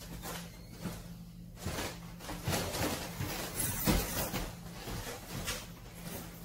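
Footsteps on a wooden hallway floor and scattered knocks and rustles of luggage being picked up and carried, the loudest knock about four seconds in, over a steady low hum.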